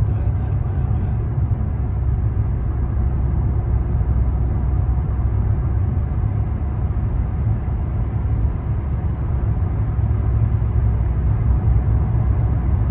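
Steady low rumble of a car in motion, road and engine noise heard from inside the cabin.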